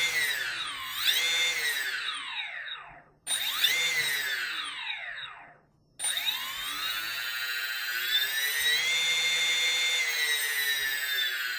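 Brushless motors of a 3D-printed quadcopter, no propellers fitted, whining as they are throttled up and down through freshly calibrated speed controllers. The pitch rises and falls in three runs: a wavering one, a short one, then a longer run held at speed that winds down near the end.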